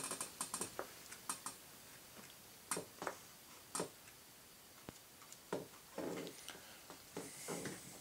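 Faint, irregular light taps and clicks of a small paintbrush dabbing and stroking epoxy onto the bare wood of a model airplane's nose, with a few soft rustles.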